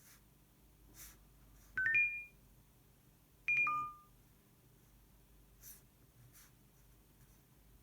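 Two short electronic alert chimes from an Apple Watch. About two seconds in comes a quick rising three-note chime, and about a second and a half later a two-note chime that falls from high to low.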